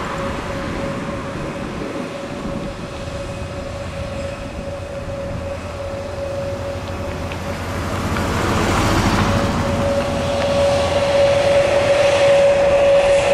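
Jet engines of a Spirit Airlines Airbus A320-family airliner running on the ground: a steady whine over a broad rush. The sound grows louder over the second half as the aircraft turns and its exhaust swings toward the listener.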